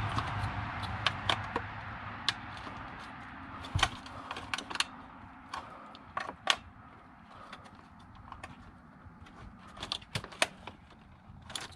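Plastic wiring connectors and harness being handled during work on a body control module: irregular light clicks and rattles, with a heavier knock about four seconds in.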